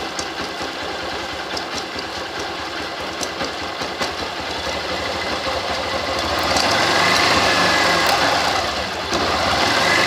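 Motorcycle engine running in first gear against the rear brake, revving up about six seconds in and dipping briefly near the end, with a knock from the chain drive once per turn of the chain, faint under the engine. The knock is the chain's master link catching as it passes, on a stretched chain, as the owner finds.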